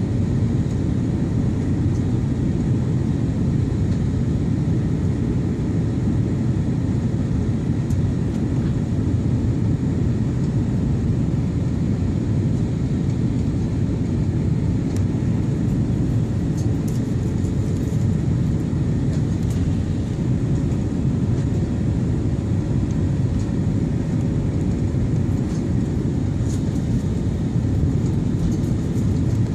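Steady roar of an airliner's cabin during descent: engine and airflow noise, deep and even, with a faint steady hum.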